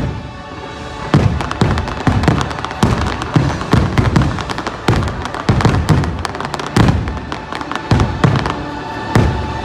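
Fireworks shells bursting in rapid succession, sharp bangs about two a second, with the show's orchestral music playing underneath.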